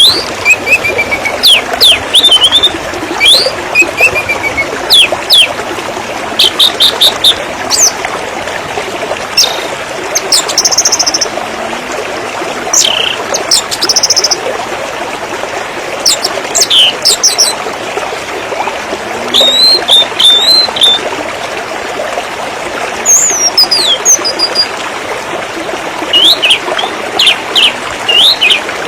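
River water flowing steadily, with songbirds chirping and calling loudly and often over it in short whistled and trilled phrases.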